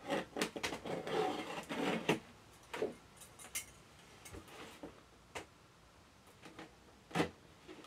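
Metal scissors snipping and scraping at the taped seams of a cardboard toy box, with irregular clicks, taps and brief rustles of the cardboard being handled, and a sharper knock near the end.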